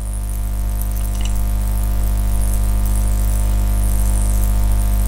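A steady low hum with many evenly spaced overtones, rising a little in level over the first second and then holding.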